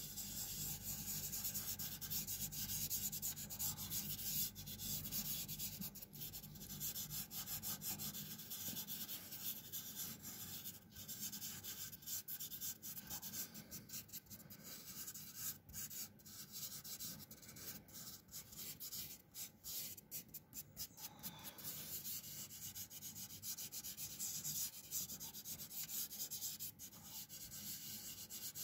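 Fingers rubbing over a pastel drawing on paper, blending the colour in repeated back-and-forth strokes: a dry, scratchy rubbing hiss.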